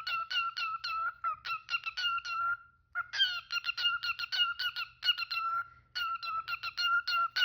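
Cockatiel calling in a rapid string of short, clipped notes at one steady pitch, about four or five a second, in phrases of a second or so with brief breaks between them.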